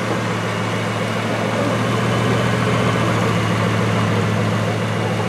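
Bugatti Veyron's quad-turbocharged 8.0-litre W16 engine running at idle as the car creeps forward at walking pace, a steady low hum.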